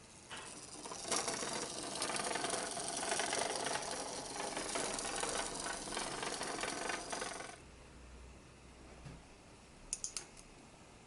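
Clockwork wind-up toy running on its mainspring, its exposed gear train whirring fast, then stopping suddenly about seven and a half seconds in. A few sharp clicks follow near the end.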